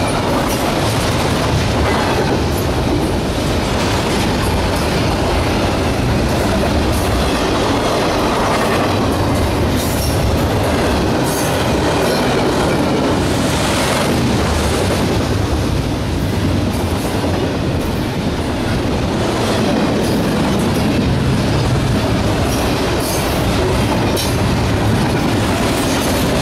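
Double-stack container train's well cars passing: a steady loud rumble and rattle of steel wheels on the rails, with sharp clicks and clanks at irregular intervals.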